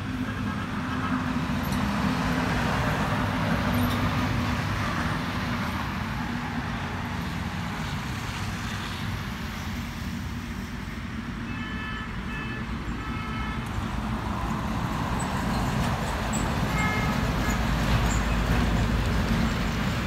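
Road traffic going past, the rushing noise of passing vehicles swelling and fading, with a vehicle horn giving short toots around the middle and once more briefly later.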